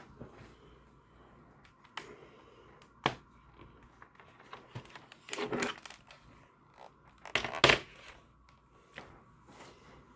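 Handling noises from a laptop being moved about on a work surface: sharp clicks and knocks about two and three seconds in, then two longer scraping rustles, the second and loudest about three-quarters of the way through.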